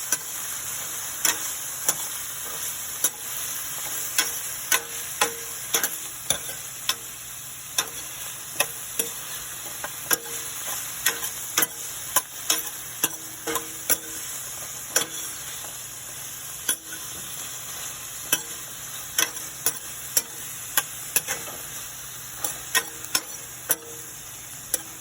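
Broccoli florets sizzling in hot olive oil in a frying pan, with a utensil clicking against the pan over and over as the florets are stirred to coat them in the oil.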